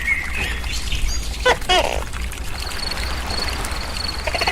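Outdoor animal chorus: a bird-like wavering chirp at the start, a loud short two-part call about one and a half seconds in, then an insect chirping in a fast even rhythm over a low steady hum.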